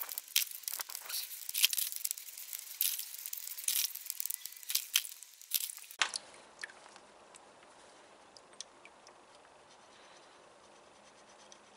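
A brush scrubbing metal sockets in quick, irregular scratchy strokes to lift off surface dust and crud; the scrubbing cuts off abruptly about halfway through, leaving faint room tone with a few small ticks.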